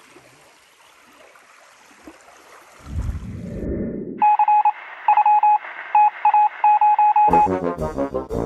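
Electronic beeping: one steady tone in short, irregularly spaced pulses for about three seconds, after faint hiss and a brief low rumble. Music starts near the end.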